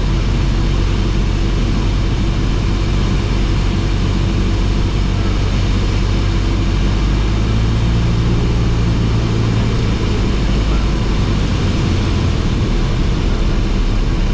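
Cessna 172S's four-cylinder Lycoming piston engine and propeller droning steadily, heard from inside the cabin, with a brief change in the engine note about halfway through.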